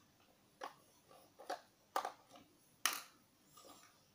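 Hard plastic clicks and knocks from a take-apart toy truck being worked with its plastic toy screwdriver: four sharp clicks spaced irregularly, about half a second to a second apart, the last one the loudest, with a few fainter taps between.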